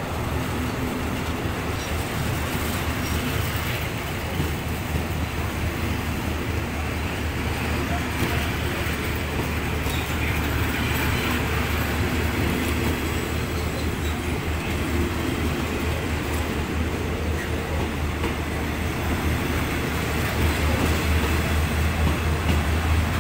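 State Railway of Thailand passenger train rolling past along the platform: a steady low rumble of coach wheels on the rails, growing louder near the end.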